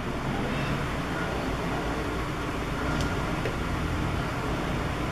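Steady background noise with a low hum, and a single light click about three seconds in.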